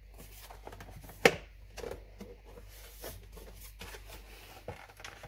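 Hard plastic housing parts of a Philips Senseo coffee machine being handled and pushed together: scattered light clicks and knocks, with one sharp snap-like click about a second in.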